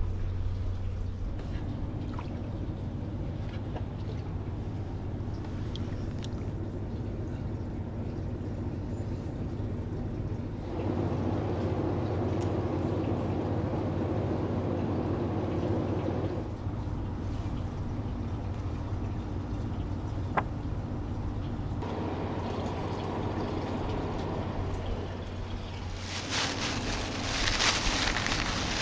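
Hot-spring footbath water trickling and lapping, over a steady low hum. Near the end a plastic bag rustles and crinkles.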